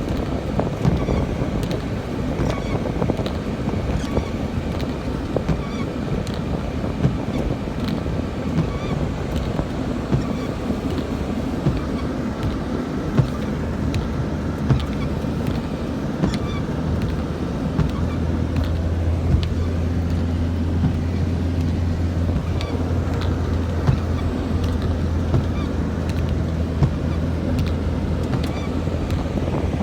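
Car driving on a wet road in rain, with steady engine and tyre noise and the windscreen wipers sweeping, a soft click about every one and a half to two seconds. A steady low engine drone grows stronger about two-thirds of the way in.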